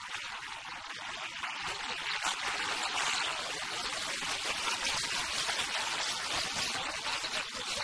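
Stadium crowd noise from a football match, a dense even din that swells about two seconds in as an attack nears the goal, then holds.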